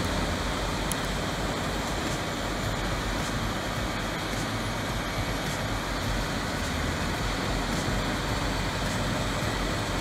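Vermeer HG6000 horizontal grinder running steadily under load as it grinds wood, a constant dense noise of diesel engine and grinding drum without pauses.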